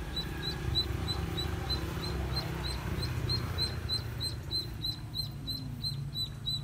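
A live duckling rigged as fishing bait peeping over and over, short high peeps at an even pace of about three a second, over a low steady rumble.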